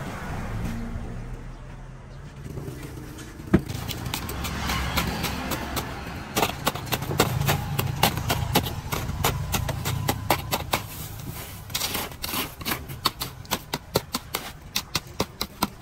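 Plastic scoop digging into crushed ice in a steel tray: crunching, clattering clicks that grow denser a few seconds in and settle into a quick rhythm of about three a second near the end. A low steady rumble runs underneath.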